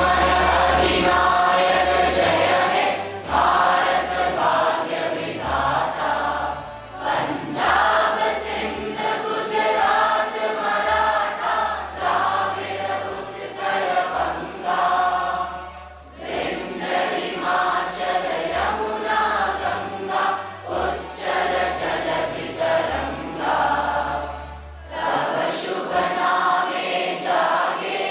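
A choir of voices singing a song together in phrases with short breaks between them, over low accompanying notes that change from chord to chord.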